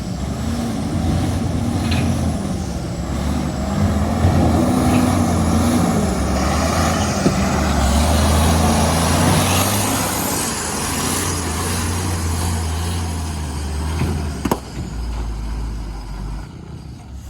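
Old truck engine running hard, its pitch rising and falling, with no sputtering, and a faint high whine rising and falling above it. A single sharp crack comes near the end, and the engine note then drops away.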